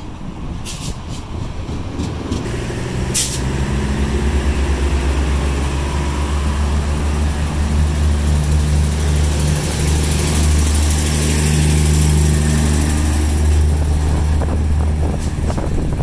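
Irish Rail Class 2600 diesel multiple unit standing at the platform, its underfloor diesel engines running steadily, with a few sharp clicks in the first few seconds and a high hiss from about eight seconds in.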